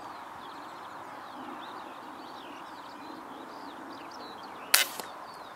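Faint bird chirps over a steady outdoor hiss, then near the end a single sharp shot from an FX Hybrid PCP air rifle fired at a rabbit, followed a moment later by a fainter second knock.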